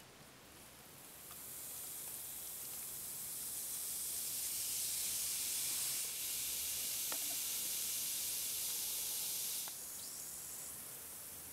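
Fizzing hiss of white powder foaming up in a liquid bath around a rusty iron cutter, a chemical rust-removal soak. It builds over the first couple of seconds, holds steady, and drops off sharply about ten seconds in.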